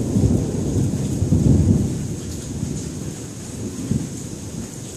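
Thunder rumbling over steady heavy rain, the rumble fading away after about two seconds.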